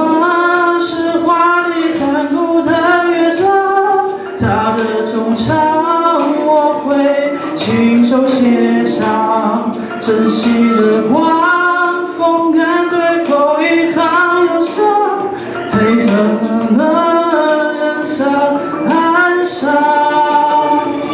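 A man singing a Mandarin pop song into a microphone over a backing track with a regular beat.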